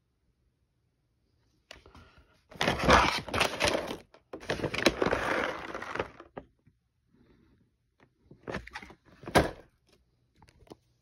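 Plastic bag of dry cat food crinkling and crackling as it is handled, in a long loud stretch and then a shorter one a few seconds later.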